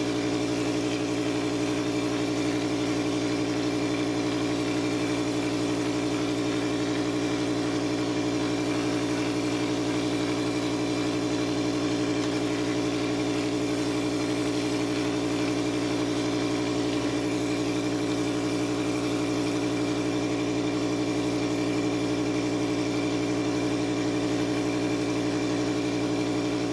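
Motor of the spray rig running steadily at constant speed: an even, unchanging engine drone with a strong hum. It fades in at the start and fades out at the end.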